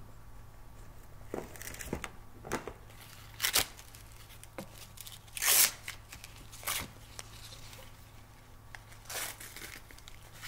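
Several short ripping and rustling sounds, the loudest and longest a little past halfway: the Velcro strap of a windlass tourniquet being pulled open and handled.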